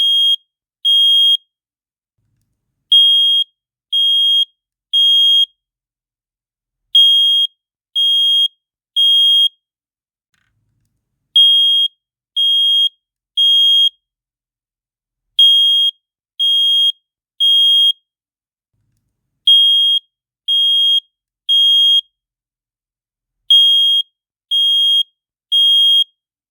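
Wizmart residential fire alarm sounding its alarm: a loud, high-pitched beep in groups of three, one group about every four seconds. This is the three-beep temporal pattern that signals a fire alarm.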